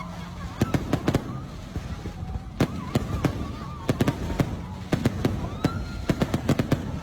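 Fireworks going off: an irregular run of sharp bangs and cracks, several a second at times, over a steady low rumble, with wavering whistling tones now and then.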